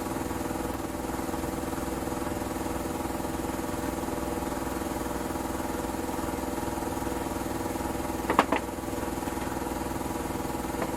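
A motor running with a steady, even drone. About eight seconds in comes a brief double clatter.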